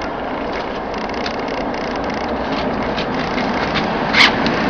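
Steady mechanical workshop noise throughout, slowly getting louder, with faint ticks. There is one sharp metallic click a little after four seconds in as the steel heating ring is pushed onto the extruder barrel.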